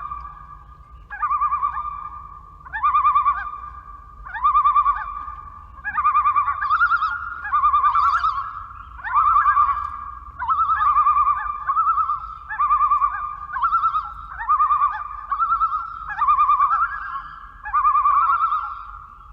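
Loons giving their quavering tremolo or "laughing" call, phrase after phrase about every second and a half. From about six seconds in, a second series at a slightly higher pitch overlaps the first.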